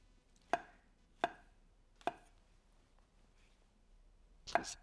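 Kitchen knife cutting through fresh brown mushrooms and knocking on a wooden cutting board: three single cuts about a second apart, then a quick run of two or three cuts near the end.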